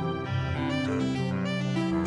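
Instrumental background music with held, steady notes, the melody moving to a new note a few times a second over sustained low notes.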